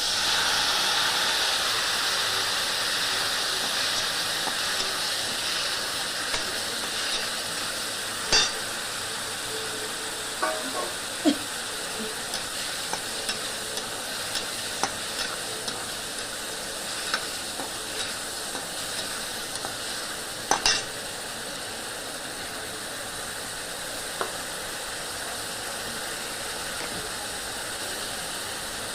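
Spice paste of ground coriander, cumin, chilli and salt mixed in water hitting hot oil in a kadai: a sudden loud sizzle that slowly dies down as the spices fry. A spatula stirs and now and then knocks against the pan.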